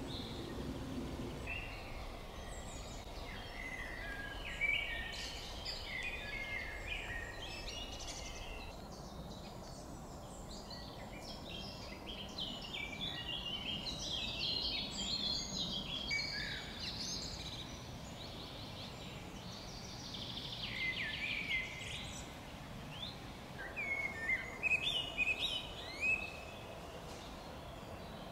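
Songbirds singing in woodland, several overlapping phrases of quick chirps and trills that come and go, loudest near the end, over a steady low background noise.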